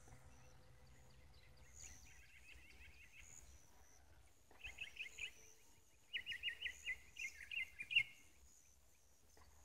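A small bird chirping in quick runs of rapid high notes, three runs with the last and loudest about six to eight seconds in. Under it, a faint drone from the model plane's nitro engine, far overhead.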